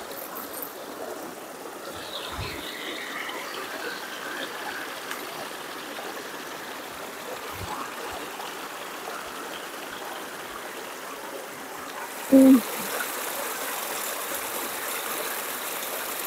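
Stream water flowing steadily, its rush growing brighter and louder from about twelve seconds in. A short, loud pitched sound breaks in just after that.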